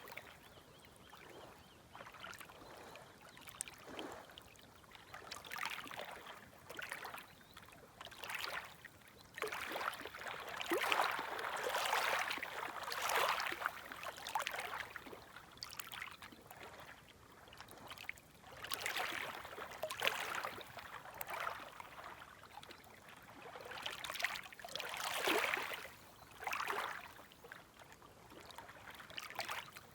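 Small, gentle waves lapping at the shoreline in uneven washes every second or two. A few swells come in louder than the rest.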